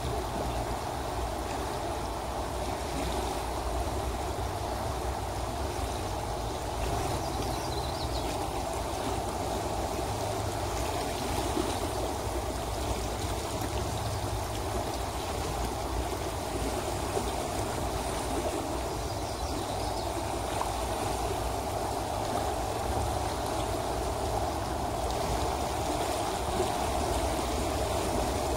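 River current flowing and rippling steadily over shallow, broken water: an even, unbroken rush of water.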